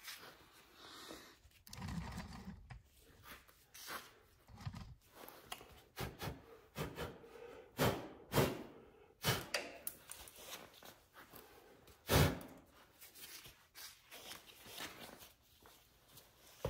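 Irregular light knocks, taps and rustles of someone handling things by hand, with a few dull thumps and one sharper knock about twelve seconds in.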